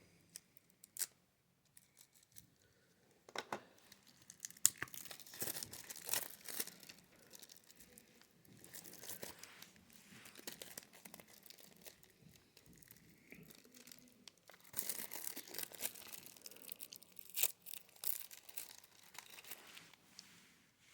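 Plastic shrink-wrap being torn and peeled off a Blu-ray case: irregular crinkling and tearing in short clusters, starting about three seconds in.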